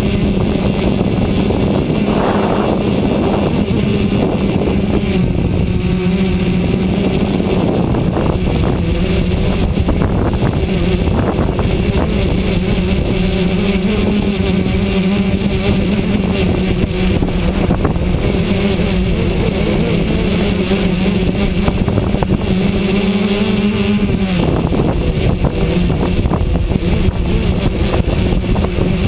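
Electric motors and propellers of a small remote-controlled aircraft, heard from the camera it carries: a loud, steady hum with a high whine, over wind rushing on the microphone. The hum dips a little in pitch about three-quarters of the way through.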